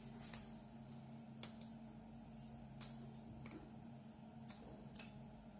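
Faint, scattered clicks of a metal spoon against glass as sugar is scooped from a glass jar and tipped into a glass bowl, over a low steady hum.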